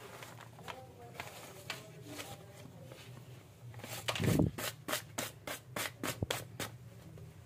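A steel spoon grinding paracetamol tablets to powder in a folded paper and scraping in a plastic bowl of wheat flour. It gives one heavy scrape about four seconds in, then quick light scrapes at about five a second.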